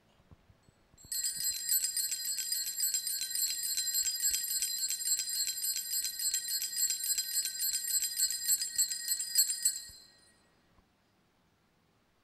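Altar bells shaken rapidly and continuously for about nine seconds, a high-pitched jingling that starts about a second in and stops abruptly near the end. It is the bell rung at the benediction with the Blessed Sacrament, as the monstrance is raised in blessing.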